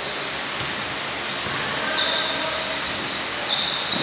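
Basketball game on a hardwood gym court: sneakers squeak in short, repeated bursts while the ball bounces.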